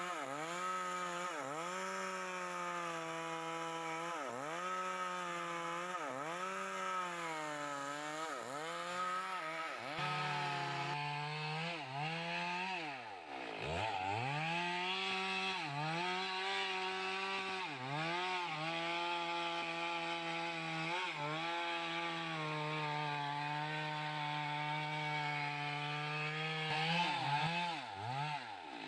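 Two-stroke Stihl petrol chainsaw running at high revs while cutting into a large tree trunk. Its pitch keeps dipping and recovering every second or two as the chain loads up in the wood, with one deeper drop toward idle about halfway through.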